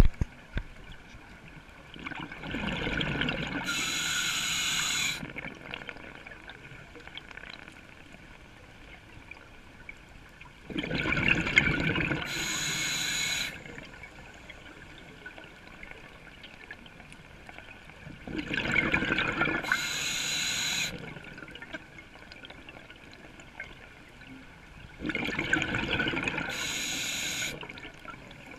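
Scuba diver breathing through a regulator underwater: four breaths about seven to eight seconds apart, each a rush of bubbling with a high hiss in its second half.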